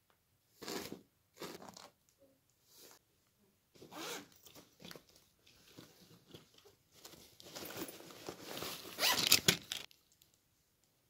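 A hairbrush drawn through long hair in separate strokes, each a short rasping swish, coming faster and louder near the end.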